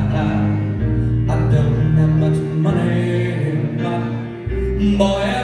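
Live piano rock music with a man singing lead over deep held bass notes that change a few times.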